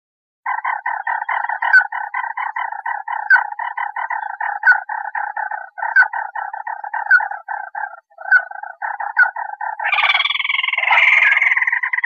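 Crake calling: a fast, even run of croaking notes, about five a second, with a sharper, higher note every second or so. Near the end a louder, harsher call takes over.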